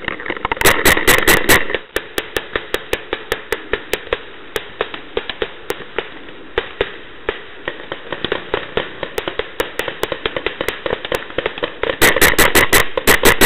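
Paintball marker firing: a rapid string of about half a dozen shots about half a second in and another string near the end, with scattered softer shots between.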